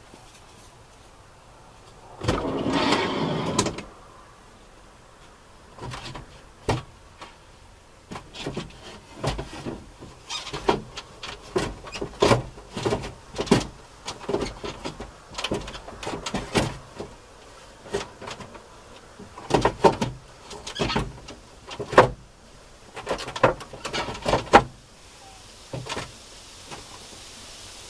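A loud scraping, sliding noise about two seconds in, then a long run of irregular knocks, clunks and clicks from someone moving and working inside the minivan.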